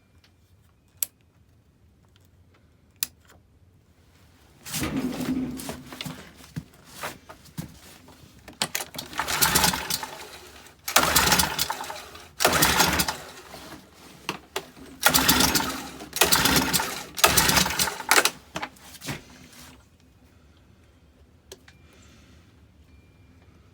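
Gas leaf blower being pull-started over and over without starting: after two sharp clicks, about ten pulls of the recoil starter in quick succession, each a second or less of rapid mechanical rattle from the cranking engine, which never catches.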